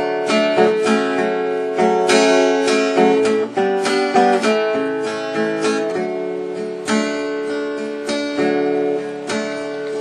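Instrumental break in a country gospel song, led by strummed and picked acoustic guitar chords.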